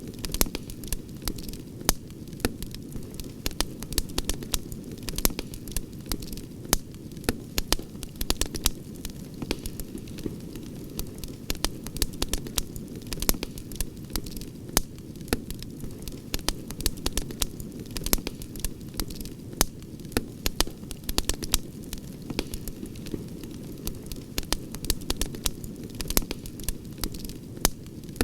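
Campfire crackling: frequent sharp pops and snaps, several a second and uneven, over a steady low rumble.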